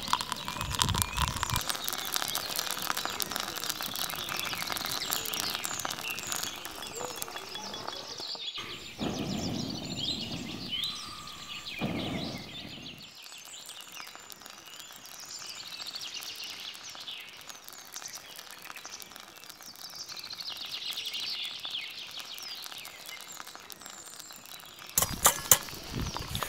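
Songbirds chirping over quiet outdoor background noise. Near the end, a wooden stick pounds lumps of charcoal in an iron pan with a quick series of sharp knocks, crushing the charcoal.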